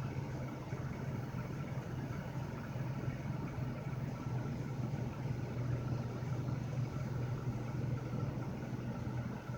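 Steady low drone of a car's running engine, heard from inside the cabin.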